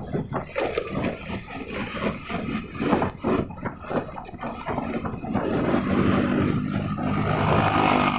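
Road noise from a moving vehicle, with an uneven rumble. About halfway in, an engine's steady hum grows louder and holds.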